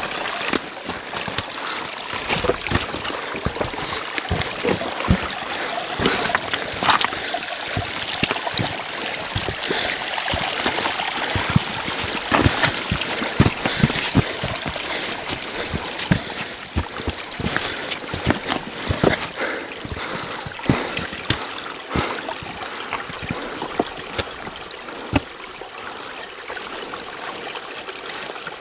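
Small creek trickling and gurgling over rocks, with frequent short splashes and clicks throughout; the water sound eases off somewhat near the end.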